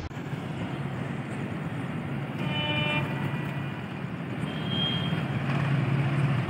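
Diesel train approaching, its low engine hum growing steadily louder, with a short horn toot about two and a half seconds in.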